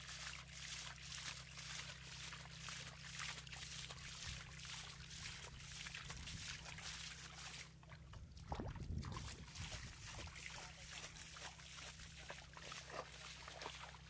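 Shallow muddy water splashing and trickling as hands dig through mud and fish flop in a drained rice-field channel. There are many small splashes and drips, with a louder slosh about eight and a half seconds in.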